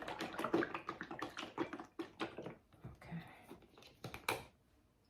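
Rapid, irregular clicking and tapping of kitchen containers and utensils being handled, dying away near the end.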